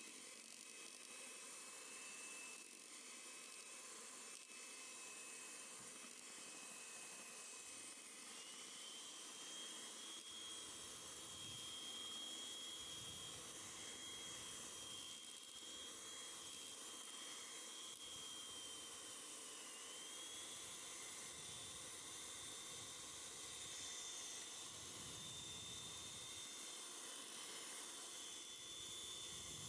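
Electric hand mixer's motor whining steadily as its twin beaters whip fresh cream; the pitch steps up about eight seconds in and dips briefly near twenty seconds.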